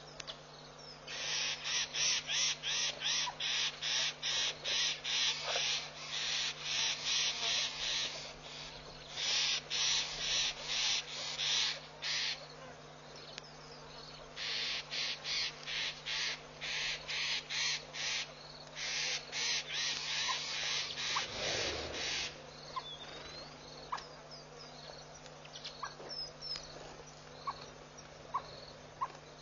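Harsh, rasping bird calls repeated about three times a second in bouts of several seconds, with short pauses between, over a steady low electrical hum. The bouts stop a little past two-thirds of the way through, leaving scattered short chirps.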